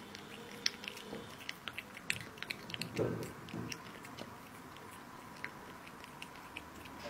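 A cat eating raw minced meat: wet chewing, licking and lip-smacking heard as a string of small, irregular clicks, with one fuller, lower smack about three seconds in.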